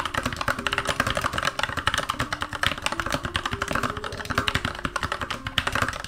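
Fast, continuous typing on an M80 Purry Cat mechanical keyboard with Kailh KH Red switches and round retro-style keycaps: a rapid, steady patter of keystrokes with a muffled, not clicky sound.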